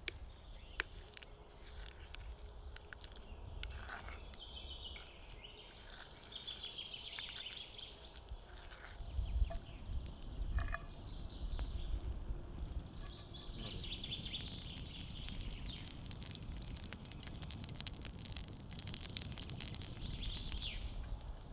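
Birds chirping in several short spells over a wood fire crackling with scattered sharp pops. A low rumble builds from about a third of the way in, and near the end butter begins to sizzle in a cast-iron pan.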